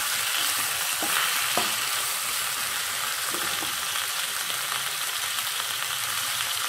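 Eggplant slices sizzling steadily in hot oil in a nonstick pan, stirred with a wooden spatula that gives a few light knocks in the first half.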